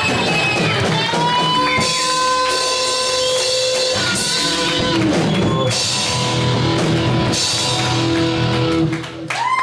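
A live rock band plays loudly: electric guitars sustain long held notes over a drum kit.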